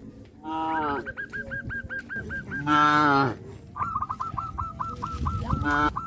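Cattle mooing in three short calls, the loudest about three seconds in and the last near the end. Under them runs a fast, steady, repeating chirp, about seven a second.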